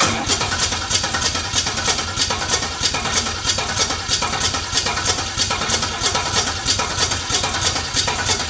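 HQ Holden engine firing up suddenly and running at a fast idle with a rapid, even pulsing beat. The idle had been called not even, with the distributor being turned in case the ignition timing is out.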